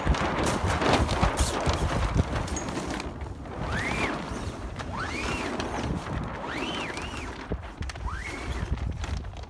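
Foresail cloth rustling and flapping as the old sail is unrolled from its roller furler and brought down onto the deck, with wind on the microphone. From about halfway through, a run of five short rising-and-falling squeaks, roughly one a second.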